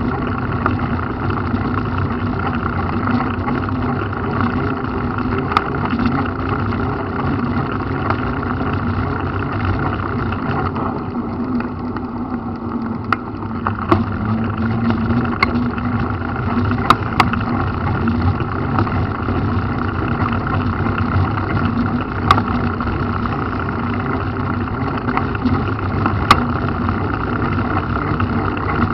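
Steady running and road noise of a vehicle moving along a wet paved road, with a constant low hum and scattered light knocks.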